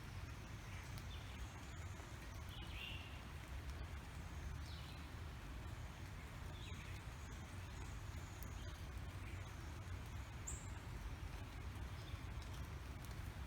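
Birds chirping in short, scattered calls, several seconds apart, over a steady hiss of falling rain and a low rumble.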